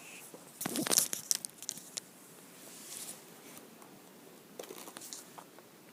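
Packaging being handled during an unboxing: a quick cluster of crinkling and clicking about a second in, then softer rustles.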